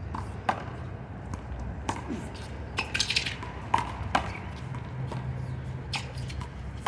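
A one-wall handball rally: sharp slaps of the small rubber ball struck by hand and smacking off the wall and court, about one a second with a quick flurry near the middle, mixed with short squeaks.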